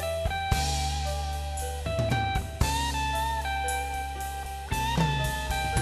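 Band music: a Telecaster-style electric guitar plays a melody line with bent notes over a drum kit and a steady bass.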